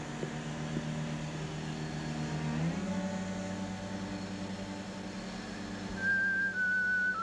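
A steady low drone of sustained tones over a hiss, stepping up in pitch about two and a half seconds in. Near the end come three short high notes, each a little lower than the last.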